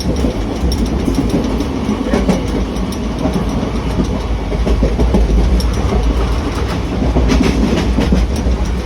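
Train running on the rails: a steady low rumble with clickety-clack wheel clicks, a quick run of them about seven seconds in.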